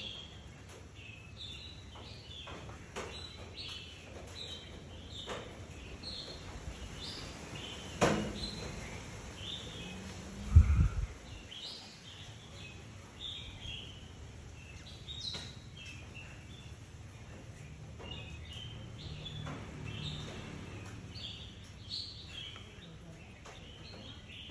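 Small birds chirping again and again in short calls. A sharp click comes about a third of the way in, and a louder low bump near the middle.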